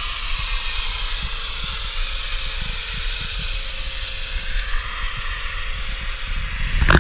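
Pressure washer running steadily as the boat ramp is washed down: a steady motor drone under an even hiss of water spray, with wind buffeting the microphone.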